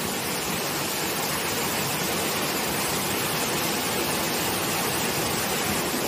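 Waterfall plunging from a high rock cliff: a steady, even rush of falling water.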